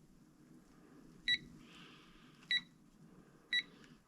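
Quinn digital torque adapter beeping as its plus button is pressed to raise the torque setting: three short, high beeps about a second apart.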